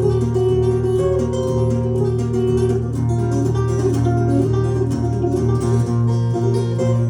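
Acoustic guitar playing an instrumental break between verses of a folk ballad: a busy plucked melody over steady low bass notes.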